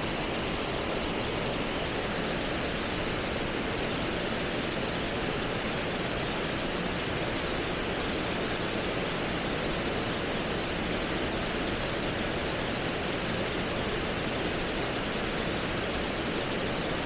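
Nabegataki waterfall pouring steadily: an even, unbroken rush of falling water spread from low to high pitches.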